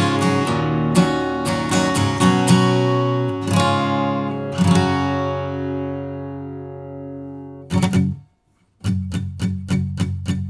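Guild GAD 50 steel-string acoustic guitar being played: strummed and picked chords, then one chord left to ring and fade away for about three seconds. After a brief break of silence about eight seconds in, a quick even strum follows at about four strokes a second.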